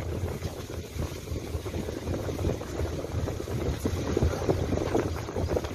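Irregular low rumble of wind buffeting and handling noise on a phone microphone, carried while walking through brush.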